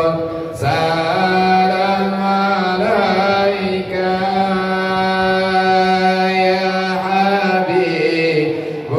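A man's voice chanting shalawat, the Islamic devotional praise of the Prophet, in a slow, drawn-out melody. He breaks off briefly near the start, then holds one long note through most of it.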